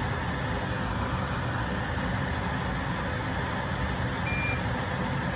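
Steady machine hum and hiss, with one brief high-pitched beep a little over four seconds in.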